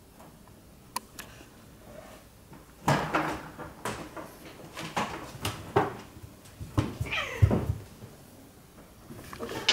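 Two Siamese cats fighting on top of a cabinet: a single sharp knock about a second in, then from about three seconds a run of thumps and scuffs of paws and bodies against the cabinet. Just after seven seconds one cat gives a short yowl that falls in pitch.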